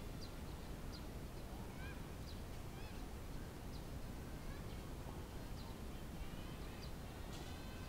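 Birds calling in short chirps and quick rising and falling notes over a low steady outdoor rumble.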